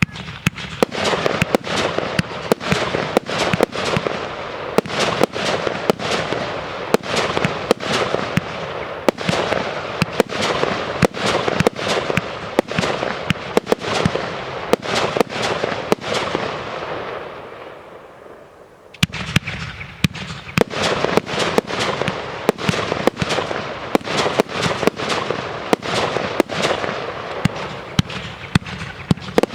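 Fireworks display: a rapid, unbroken run of bangs, several a second, over a steady crackle. It fades out about two-thirds of the way through, then starts again suddenly with a fresh volley.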